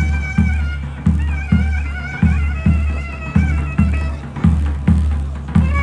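Davul and zurna playing: a shrill, ornamented zurna melody over a deep davul beat about twice a second.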